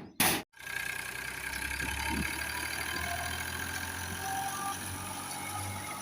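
Fiat 480 tractor's three-cylinder diesel engine idling steadily, after a loud burst that cuts off abruptly in the first half second.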